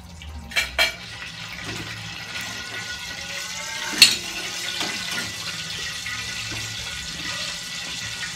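Leftover frying oil poured into a hot frying pan and sizzling with a steady hiss. There are two light metal clinks just before a second in, and a sharp clank of a pan on the stove grate about four seconds in.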